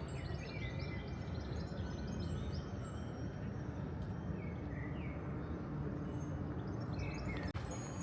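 Steady low rumble of city traffic, with small birds chirping and twittering over it, thickest in the first few seconds and again near the end.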